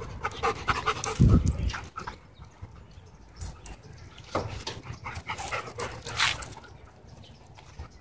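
Dogs panting, with scattered scuffs and rustles of their movement.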